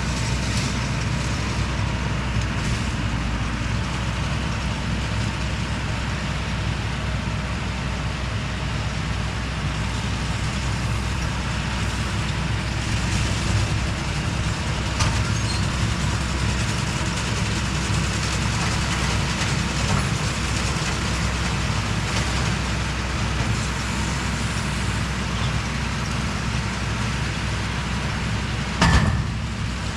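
Tractor engine running steadily under load, pulling a John Deere round baler whose pickup and chamber add a constant mechanical clatter. A single sharp knock sounds about a second before the end.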